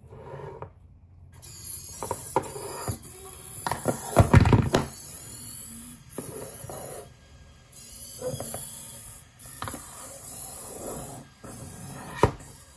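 Tomy i-SOBOT toy humanoid robot moving under remote control as it tries to get up: its small servo motors whir in short spells among plastic clicks and knocks. Its body hits the surface with a heavy thump about four seconds in, and there is a sharp click near the end.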